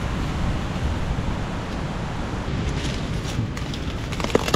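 Steady wind, heard mostly as a low rumble of wind noise on the microphone, with a brief crackle about four seconds in.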